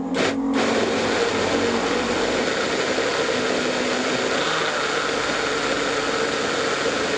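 Electric blender motor running steadily while blending the chili sauce mixture, with a brief dip in its sound right at the start.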